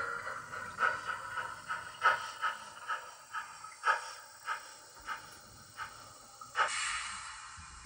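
Recorded steam-engine sound from a Gn15 model steam locomotive's sound system. It chuffs at an easing pace: the chuffs come further apart and fade as the engine slows. About six and a half seconds in comes a louder hiss of steam.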